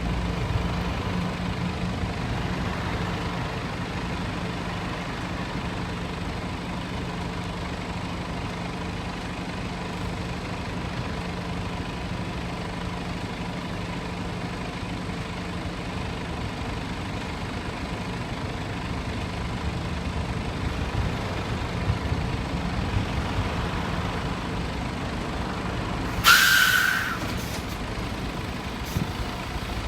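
Steady vehicle engine and road-traffic noise with a constant low hum. About 26 seconds in comes a short, loud hiss, under a second long.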